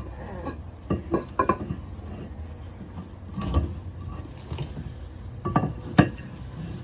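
Concrete pavers and hand tools knocking and scraping as a paver is lifted, dirt added beneath it and the paver set back down: a handful of sharp clacks, the loudest about six seconds in.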